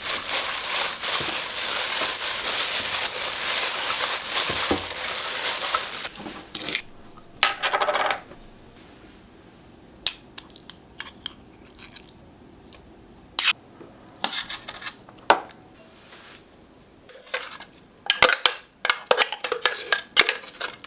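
Kitchen food preparation: a steady rasping scrape for about six seconds, then scattered taps and clinks of bowls and utensils.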